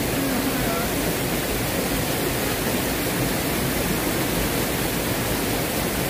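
Swollen mountain stream rushing over rocks: a steady, even rush of water.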